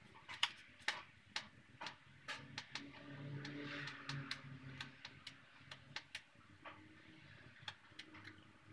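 Faint, irregular small metallic clicks as the brake rod joint (clevis) is turned by hand on the push rod of a Honda CRF250L rear brake master cylinder. A faint low hum runs for about two seconds around the middle.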